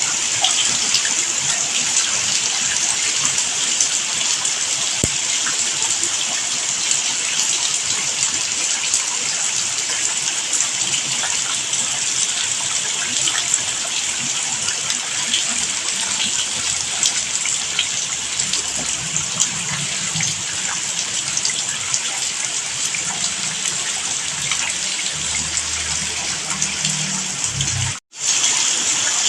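Steady heavy rain falling, an even hiss of dense raindrops. It cuts out for a moment near the end, then resumes.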